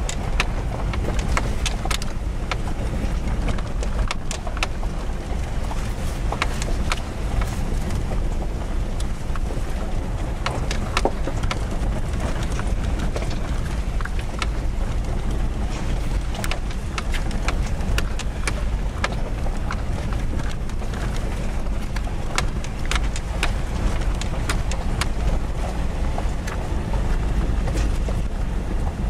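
Inside a 4x4 driving over a rough, rocky mountain dirt road: a steady low rumble of engine and tyres, with frequent sharp clicks and knocks from the rough surface and rattling in the cab.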